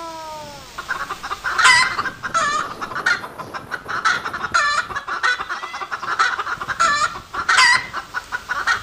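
A flock of hens clucking busily, with several louder squawks through it.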